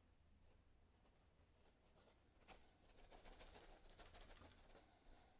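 Faint scratching of a paintbrush stroking oil paint onto canvas, starting about two and a half seconds in, in an otherwise near-silent room.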